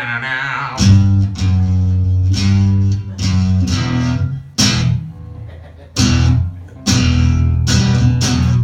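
Acoustic guitar chords strummed over deep bass guitar notes, played in short phrases with brief breaks: the band warming up before the song starts.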